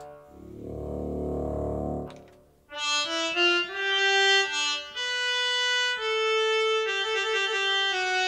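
Akai EWI5000 electronic wind instrument being played. A low, buzzy held note sounds for about two seconds and breaks off. After a short pause comes a slow melody of sustained, reedy sampled notes.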